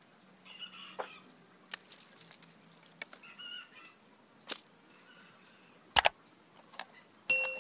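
Sharp clicks and snaps of wire being handled and bent around the branches while a bonsai tree is wired, about one every second or so, the loudest about six seconds in. Fowl call in the background, with a brief honk near the end.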